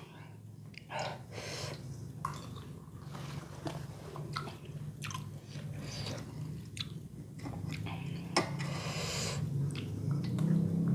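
Close-up chewing of a mouthful of bakso (meatball soup with noodles): irregular wet smacks and small mouth clicks over a low steady hum.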